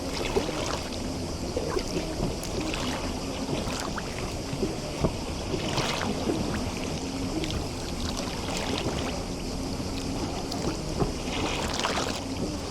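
Adriatic seawater lapping and splashing in small irregular slaps against the shore of a bay, with a faint low hum running underneath.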